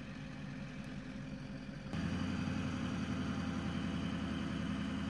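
Engine idling with a steady low hum, stepping up to a louder, fuller note about two seconds in.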